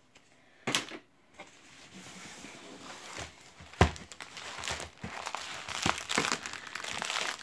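Plastic packaging from a diamond painting kit crinkling and rustling as it is handled. There is a sharp tap just before a second in and a louder knock about four seconds in.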